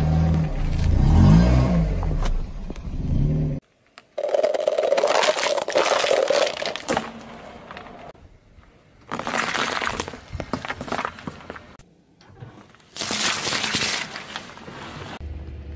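Car tyres rolling over and crushing objects in a run of short cuts. First a large rubber duck is squashed under the wheel with a low, wavering squeak. Later come the crackling and crunching of thin plastic cups, and near the end the wet squish of an orange flattened under the tyre.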